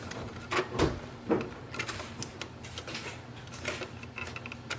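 Plastic cover of an Epson EcoTank printer being fitted back into place by hand: a series of short plastic clicks and knocks, the loudest within the first second and a half.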